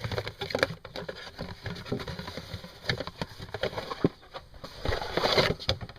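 Close handling noise: irregular crackling, clicking and rustling as the replacement ignition switch is picked up and handled for showing, with a louder rustle about five seconds in.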